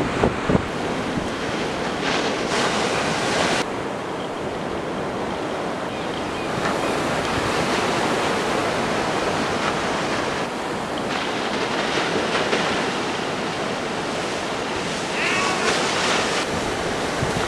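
Steady rushing noise of wind and surf, with the wind buffeting the microphone.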